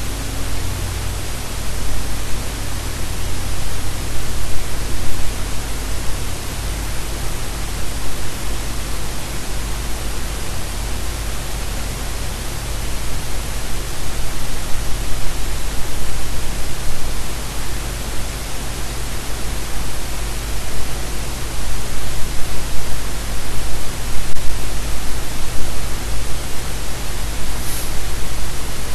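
Loud, dense static-like noise filling all pitches, with a steady low hum underneath; its loudness swells and dips unevenly.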